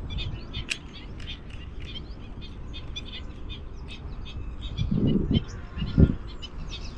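Many small birds chirping and twittering in a busy, steady chorus. Two short, low, muffled bumps come about five and six seconds in.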